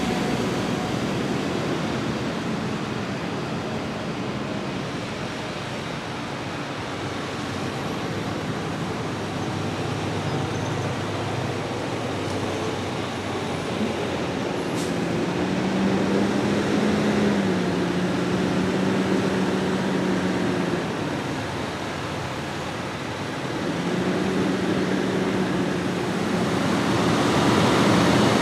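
Diesel engines of heavy farm machinery running during the corn silage harvest, a steady drone whose pitch rises and falls as the machines work, growing louder around the middle and again near the end.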